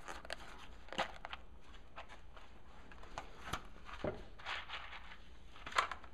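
A small plastic case of blue butt connectors being opened and handled, with scattered light clicks and rattles of plastic and loose connectors. A sharper click comes near the end.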